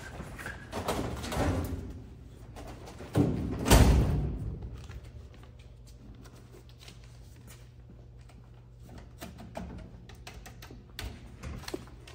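Knocks and rattling from a snack vending machine's hinged metal front door, then a heavy thunk a little under four seconds in as it swings shut. After that, a low steady hum with a few faint clicks.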